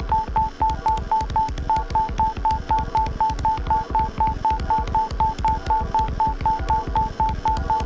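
Live electronic music from a laptop performance: a rapid string of short high beeps at one pitch, about six a second, over pulsing bass and sharp clicks.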